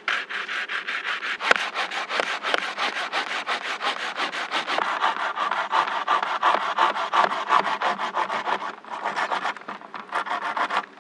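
Hand saw cutting into a wooden pole in quick, even back-and-forth strokes, with a short break about nine seconds in before the sawing resumes.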